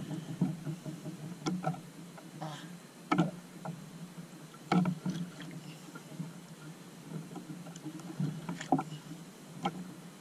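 Water slapping against the hull of a small outrigger boat over a steady low hum, with a handful of irregular sharp knocks, the loudest about three and five seconds in.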